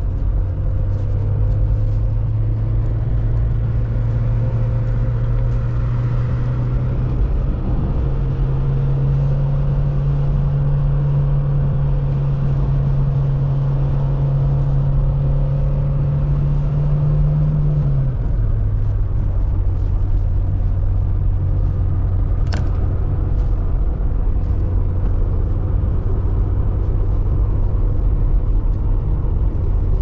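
Motor vehicle engine running steadily under way, its pitch stepping up about seven seconds in and dropping back at about eighteen seconds, with a single sharp click a little after twenty seconds.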